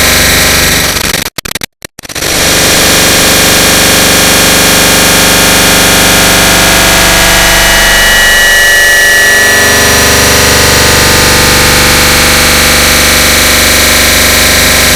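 A click sound effect stacked and multiplied an enormous number of times, merged into a very loud, harsh, distorted wall of noise with faint steady tones running through it. It cuts out briefly about a second and a half in, then resumes.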